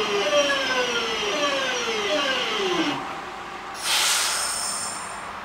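Class 323 electric multiple unit's traction motor whine, several tones falling steadily in pitch as the train slows, fading out about three seconds in. About a second later comes a sudden loud hiss with a high steady whine.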